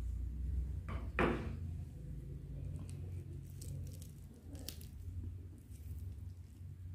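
Crispy fried wonton wrapper crackling as a cut, noodle-filled roll is pulled apart by hand, with one sharper crunch about a second in and faint crackles after.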